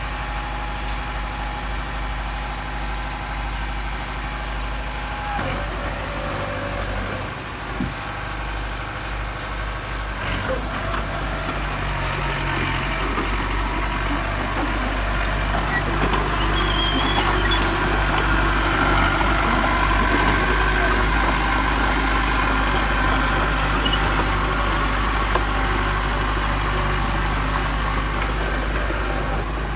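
Diesel engine of heavy earthmoving machinery running steadily. A little over ten seconds in it picks up and grows louder, as if taking on load, then holds there.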